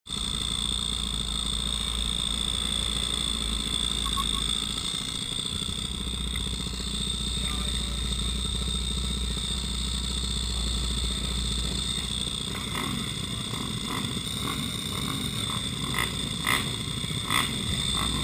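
Mini motorcycle (pit bike) engine idling steadily on a starting grid, heard from a camera mounted on the bike. Several short sharp sounds come in over the last few seconds.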